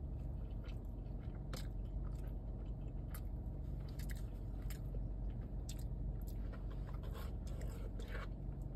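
Close-miked chewing of loaded kimchi fries, with scattered short wet clicks and a fork digging into a paper takeout box, over a steady low hum.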